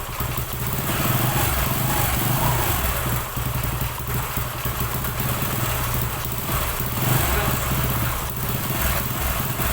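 Single-cylinder four-stroke engine of a Bajaj/Kawasaki Boxer 150 motorcycle running steadily, freshly rebuilt with a new connecting rod and crankshaft bearing.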